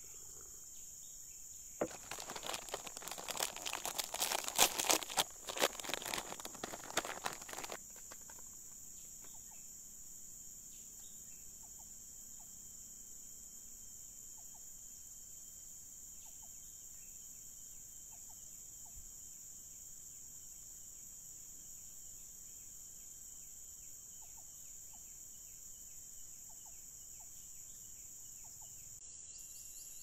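Steady high-pitched insect chorus. From about two seconds in until about eight seconds, a loud crackling rustle covers it, then the insect drone carries on alone with a few faint short notes.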